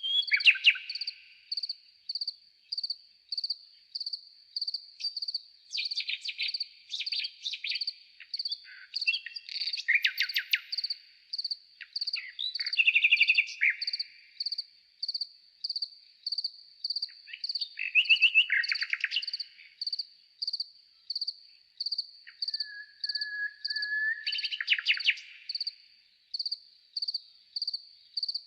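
Common nightingale song slowed to a quarter of its real speed: separate phrases of rapid trilled notes, with one long steady whistle about two-thirds of the way through. Under it runs a regular high pulsing chirp, a little more than once a second.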